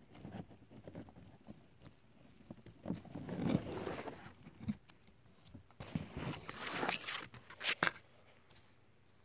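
Miniature hens scratching and stepping in loose wood shavings inside a plastic bedding bag: two spells of rustling about three and six seconds in, then a few sharp taps near the end.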